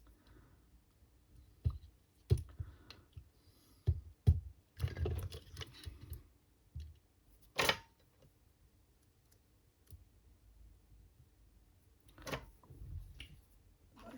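Battery cells and tape being handled on a workbench: scattered small clicks and knocks, a short rustling stretch about five seconds in, and one sharper knock near the middle.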